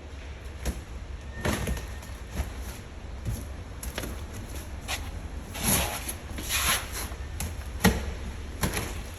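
Irregular knocks, clunks and rustling of objects being handled, over a steady low rumble.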